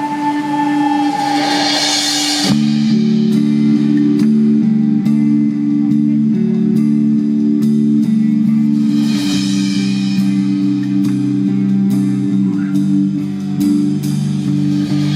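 Live band playing the instrumental opening of a slow song: sustained guitar and keyboard chords that change about two and a half seconds in, over a steady beat of light ticks about twice a second, with cymbal swells near the start, in the middle and near the end.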